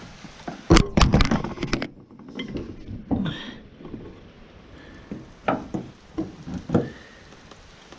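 Sharp clicks and knocks from prying the end fitting of a failed hood gas strut off its mount: a dense cluster about a second in, then a few scattered knocks.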